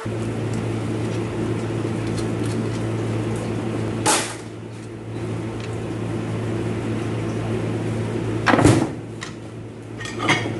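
A steady low machine hum with two sharp knocks, one about four seconds in and a louder one near the end, as of metal transmission parts being handled during teardown.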